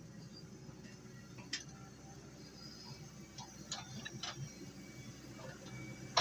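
Hitachi excavator's diesel engine running low and steady, with sharp metallic clicks and clanks from the machine, several close together in the middle and a louder clank at the end.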